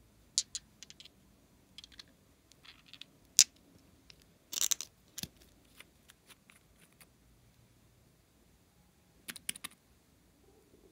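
Small clicks and taps of two nail polish bottles being handled, and a screw cap being twisted off. The loudest sharp click comes about three and a half seconds in, a short scratchy rasp just before five seconds, and a quick run of clicks near the end.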